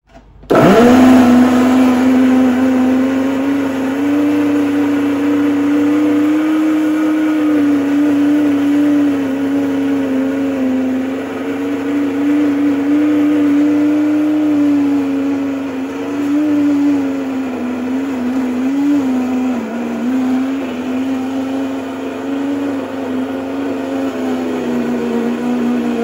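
Canister wet/dry vacuum motor switched on about half a second in, quickly spinning up to a loud, steady whine whose pitch wavers as the hose sucks up dust, dipping briefly a little past the middle. It is running again after a loose wire in it was reconnected.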